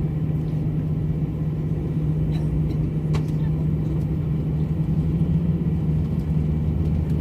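Airliner cabin noise: the steady drone of the jet engines and airflow, with a constant low hum and rumble.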